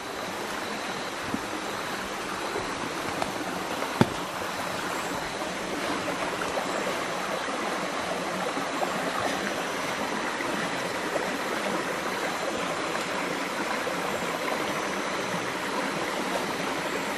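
Steady rushing of flowing stream water, with one sharp click about four seconds in.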